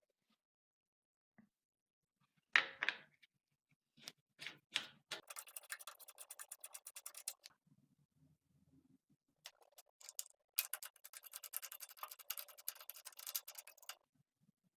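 Rapid, fine clicking from small hand-tool work in a workshop, in two runs of a few seconds each, with a few separate clicks and knocks before them.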